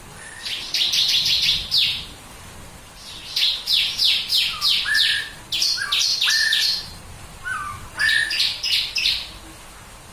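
Bar-winged prinia (ciblek kristal) singing its rapid 'tembakan' phrases: three bursts of fast, high, repeated notes, the middle one longest. A few short, lower whistled notes are mixed in.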